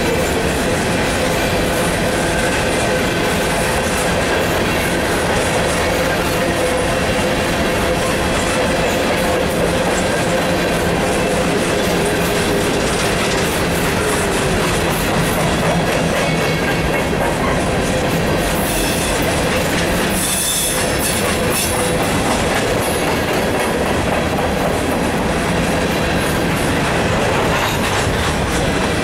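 Empty steel coal hopper cars of a freight train rolling past at speed: a steady clatter of wheels over the rails and rattling car bodies, with a thin, steady squeal from the wheels.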